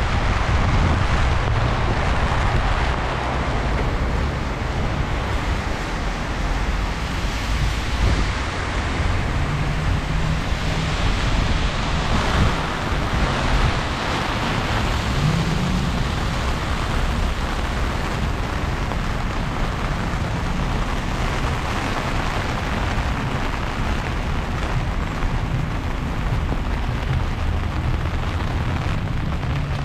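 Heavy freezing rain falling, a steady hiss over a deep continuous rumble of wind on the microphone.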